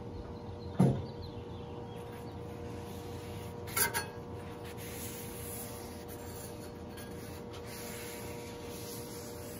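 Metal spatula pushing an oiled paper towel across a hot steel griddle top, with a sharp knock about a second in and a shorter clack near four seconds, over a steady hum.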